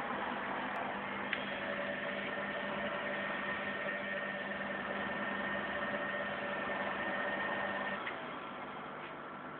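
Hoover Ultra Care 1300 vacuum cleaner motor running with a steady whine over a rushing noise; the whine changes and the sound drops a little about eight seconds in.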